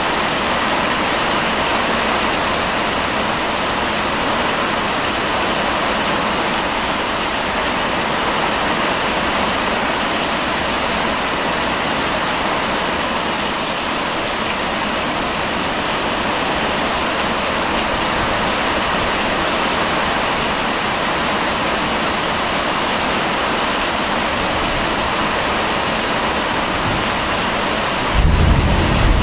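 Heavy thunderstorm rain pouring steadily, a dense even hiss. Near the end a low rumble sets in and the sound gets louder.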